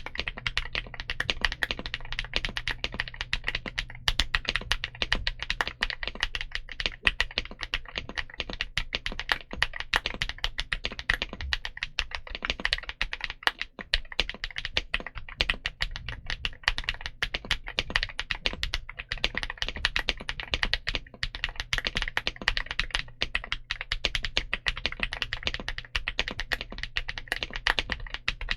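Continuous fast typing on a mechanical keyboard fitted with Kookaburra frankenswitches: Huano Blue click-jacket stems in Gateron Blue bottom and NK Silk top housings with 63.5 g springs, giving a dense stream of sharp, bright key clicks.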